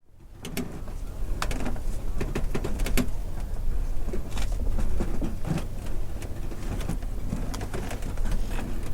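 Wooden dock timbers shifting and creaking under strain, with irregular clicks, knocks and short groans over a steady low rumble.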